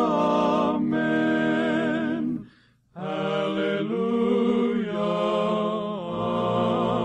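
Male gospel quartet singing held close-harmony chords with vibrato, stopping briefly about two and a half seconds in, then holding another chord.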